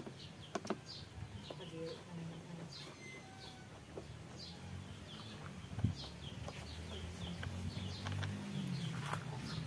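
Birds chirping over and over in short falling notes, with chickens clucking underneath, and a few sharp clicks: two about half a second in and a louder one near six seconds.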